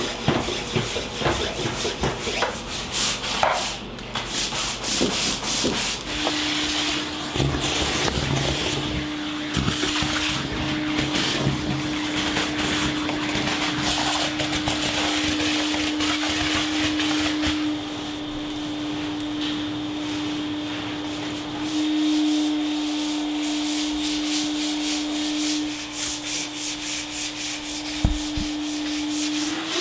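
A stiff brush scrubbing a dirty floor in quick back-and-forth strokes. A vacuum runs with a steady hum from about six seconds in.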